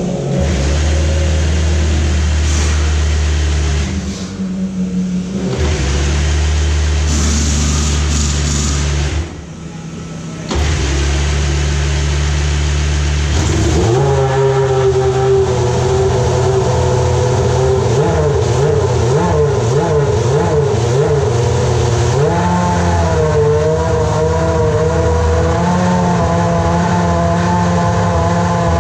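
A steady low drone, broken twice by short gaps, gives way about 14 seconds in to the Ferrari F1-2000's V10 racing engine running at a high idle. Its pitch wavers with small throttle blips and steps up slightly near the end.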